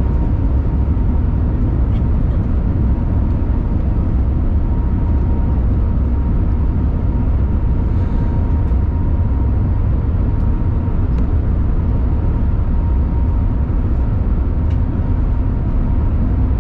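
Cabin noise of an Airbus A350-900 taxiing, heard from inside beside the wing: its Rolls-Royce Trent XWB engines running at taxi power give a steady low rumble with a thin steady whine over it.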